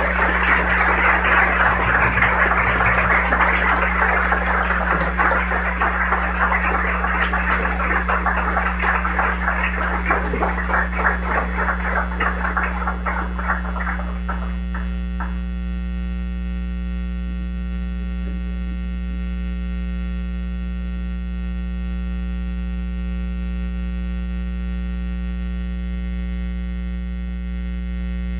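Audience applauding, the clapping thinning to a few last claps about fourteen seconds in and then stopping. A steady electrical mains hum runs underneath and is all that is left afterwards.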